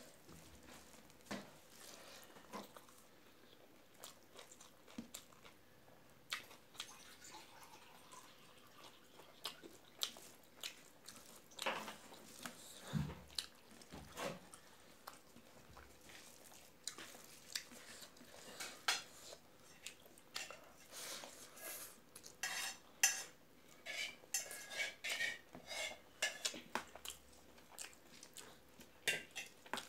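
Fingers mixing and scooping rice and curry on a stainless steel plate: faint scattered clicks and scrapes of hand on metal, with some chewing and lip smacks. The clicks come thicker in the last several seconds.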